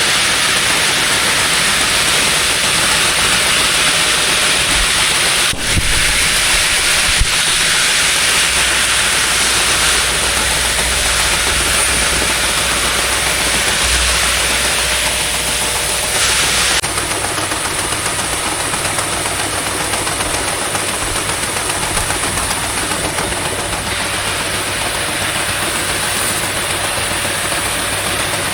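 An engine running steadily under a loud, even hiss of wheat seed pouring into a grain drill. There are a couple of brief knocks early on, and the hiss eases slightly about two-thirds of the way through.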